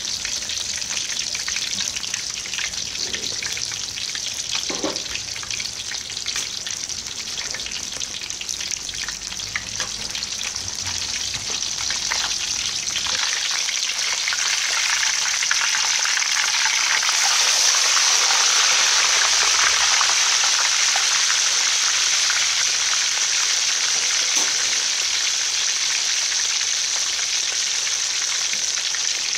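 Whole fish deep-frying in hot oil in a steel wok: a steady sizzle with crackling. It grows louder about halfway through, after the fish is turned over.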